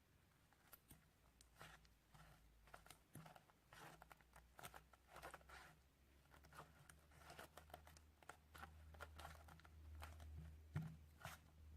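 Faint, irregular sticky crackling and clicking of glue slime being stirred with a spoon in a bowl, as it thickens with laundry detergent mixed in as activator. One sharper click near the end.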